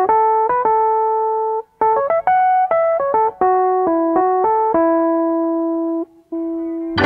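Isolated piano part playing a single-note melody: quick runs of notes stepping down and up, a brief break about two seconds in, then slower, held notes. A thick, sustained organ chord comes in right at the end.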